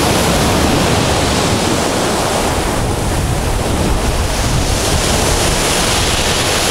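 Heavy storm waves breaking on a pebble shore, a dense, steady wash of surf, with wind blowing on the microphone.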